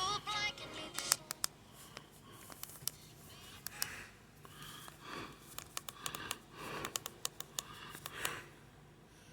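Scattered small clicks and scrapes in a quiet small room, with a few soft swells of noise in between.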